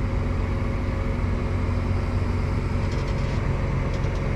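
Tractor engine running steadily, heard from inside the cab as a constant low drone with a steady hum.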